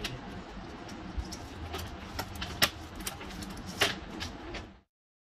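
Thin laser-cut plywood pieces clicking and clattering as they are lifted out of the cut sheet and stacked together, a handful of sharp irregular ticks over a steady low hum. Everything cuts off suddenly shortly before the end.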